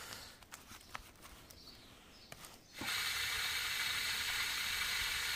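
Faint crinkles and clicks of a foil lid being peeled off a tray of pet-food pâté. About three seconds in, a steady hiss starts suddenly as water from a hose pours into a plastic measuring cup.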